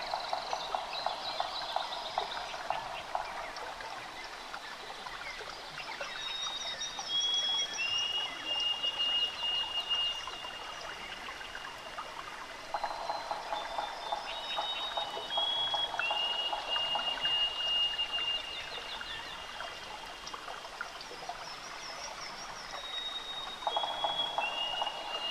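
Outdoor wildlife calls. A buzzy pulsed trill lasts about three seconds and returns roughly every eleven seconds, and high whistled notes step down in pitch in a repeating pattern.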